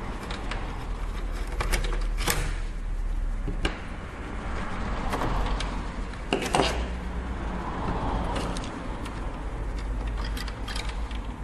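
Hand-tool work on a PS3 casing: a screwdriver turning the case screws, with scattered clicks and small metallic taps as screws and parts are handled, over a steady low hum.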